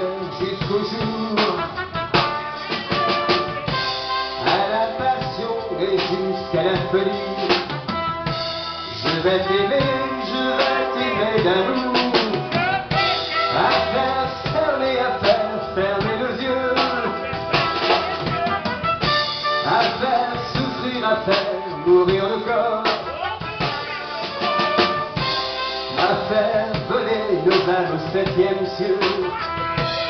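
Live band music: a drum kit keeps a steady beat with snare and bass drum under the melody.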